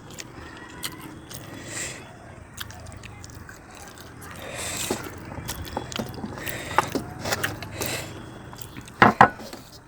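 Close-miked eating sounds: chewing with scattered wet clicks and smacks, two loud ones in quick succession near the end.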